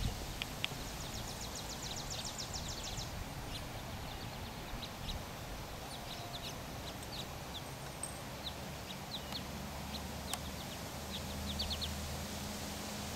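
Small birds chirping outdoors, with a quick run of high chirps about a second in and scattered short chirps after, over a faint low steady hum.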